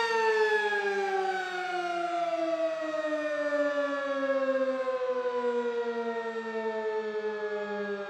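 Sentry 20V2T dual-tone rotating outdoor warning siren winding down after its steady alert tone: the tone slides slowly and evenly down in pitch and gradually fades as the rotor slows.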